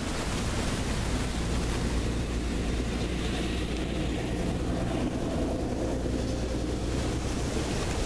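Steady wind noise on the microphone: a low rumble under an even hiss, with no clear separate events.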